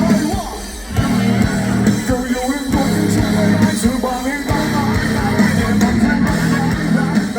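Live rock band playing through a loud PA, with electric guitar, bass and drums under a sung vocal line.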